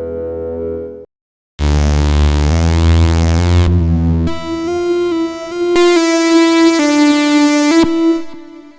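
UVI Cameo software synthesizer presets being played: one patch cuts off about a second in, then after a short gap a loud, bright, bass-heavy sound comes in, followed by a melody of stepping notes over a held note that fades out near the end.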